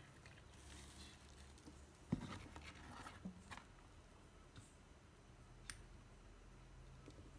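Near silence broken by a few faint clicks and light knocks from a hand handling the wires and cardboard of a small LED-lit model. There is a knock about two seconds in and a sharp tick near six seconds.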